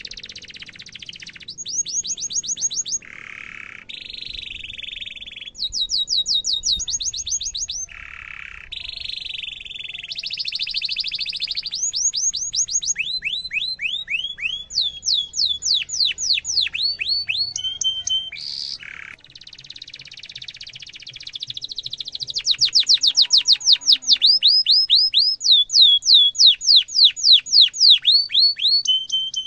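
Domestic canary singing a long, vigorous song: rapid trills of repeated falling notes alternating with buzzy, rattling passages, loudest in the last several seconds.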